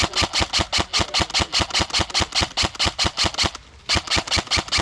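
Airsoft gun firing on full auto: a fast, even string of sharp shots at about eight a second, broken by one brief pause about three and a half seconds in.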